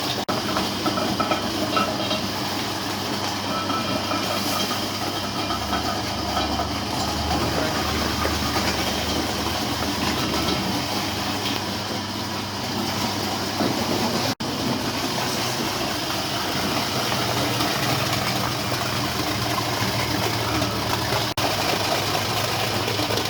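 Cassava shredding machine running steadily, a continuous mechanical rattle and clatter.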